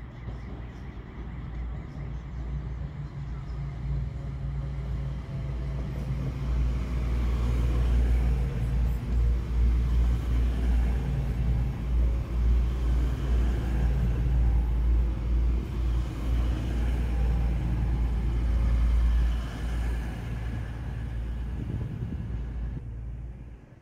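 Diesel train running past, its low engine rumble growing louder over the first several seconds, loudest for about ten seconds, then easing off near the end.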